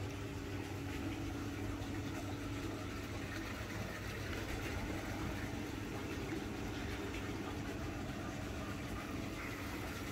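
A steady low mechanical hum, as of a motor or machine running continuously.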